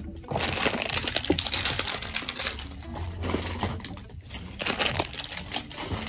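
Plastic snack packets rustling and crinkling, with small clicks and taps against a clear plastic storage drawer as they are packed in by hand.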